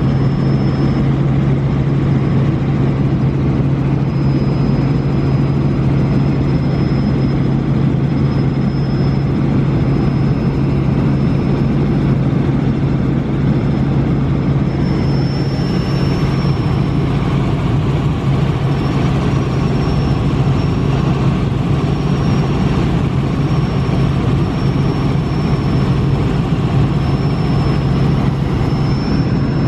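Airliner cabin noise during the climb: the engines running steadily, a deep even hum over a rushing haze, with a thin high whine that gets a little louder about halfway through.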